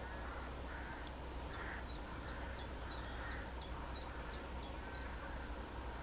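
Small songbird singing a fast run of short, high two-part notes, about two to three a second, starting about a second in and stopping about a second before the end. Fainter lower bird calls repeat about once a second over a steady low rumble.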